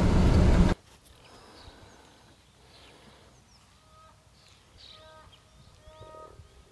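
Car cabin road noise cuts off abruptly under a second in. Then a quiet outdoor ambience follows, with birds chirping and giving short repeated pitched calls that grow more frequent toward the end.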